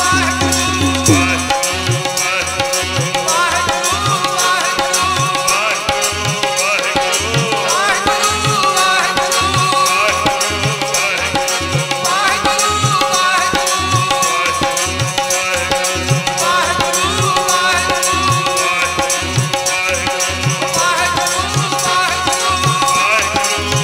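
Sikh kirtan music: a harmonium melody over held drone notes, with tabla keeping a steady beat, its bass strokes about twice a second starting about a second in.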